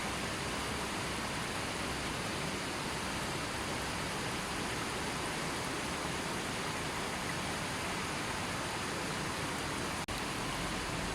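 River water flowing steadily, an even rushing with no birds or other sounds; it drops out for an instant about ten seconds in.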